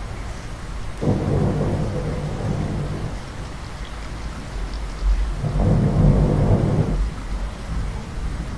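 Heavy steady rain with two rolls of thunder: one starting about a second in, another about five and a half seconds in.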